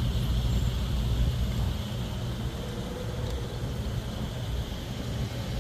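Central air conditioner condensing unit running, a steady low hum from its compressor and outdoor condenser fan.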